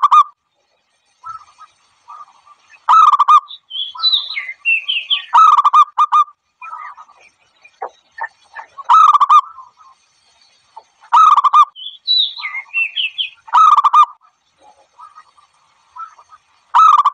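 Zebra dove (bato-bato) calls: short bursts of rapid, pulsed cooing every two to three seconds, with higher warbling chirps mixed in twice. The same sequence recurs about every eight seconds, as a repeating recorded call track made to lure the birds.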